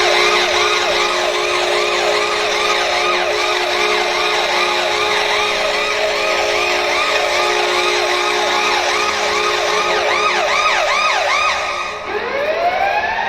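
Washington Capitals arena goal horn, which sounds for a home-team goal: a loud, steady horn chord layered with quick repeating siren-like whoops, a few a second. Near the end the horn chord stops and a siren winds up, rising in pitch.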